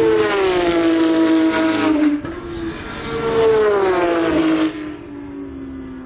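Race cars passing at speed on the circuit, one after another: two loud engine passes, each note rising then falling in pitch as the car goes by, then a fainter engine note trailing off near the end.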